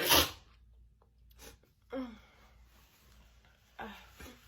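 A woman sneezing in a messy fit: a loud, sharp sneeze right at the start, then two shorter vocal bursts falling in pitch about two and four seconds in.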